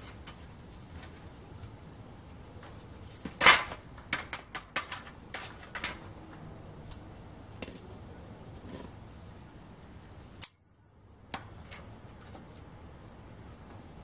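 Metal clinks and knocks from freeing a freshly cast aluminium round bar from its tin-can mould on a steel plate: one heavy knock a few seconds in, then a quick run of sharp clanks and a few scattered taps after.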